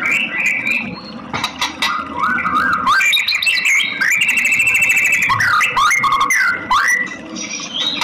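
White-rumped shama singing: a loud, varied song of whistled notes gliding up and down, mixed with sharp clicks, with a fast run of rapidly repeated notes in the middle.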